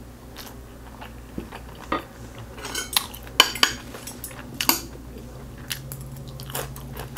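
Stainless steel chopsticks and a wooden spoon clicking and clinking against ceramic plates, with a quick run of sharp clicks around the middle. Near the end come crunchy bites of a raw cucumber slice.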